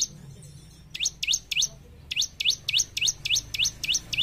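Bar-winged prinia (ciblek) calling: a rapid series of sharp, sweeping high chirps, given in short bursts, one, then three, then a longer run of about four notes a second.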